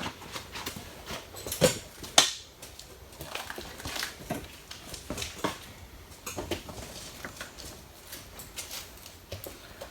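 Hand tools and metal engine parts clinking and knocking as they are handled, with two sharper knocks about two seconds in.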